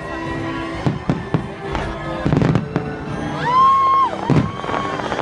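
Aerial fireworks bursting in a rapid series of sharp bangs over loud show music, with a strong held melody note about three and a half seconds in.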